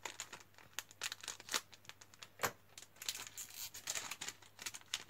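Plastic Lego minifigure blind bag crinkling in the hands as it is worked and torn open: irregular sharp crackles, thickest in the second half.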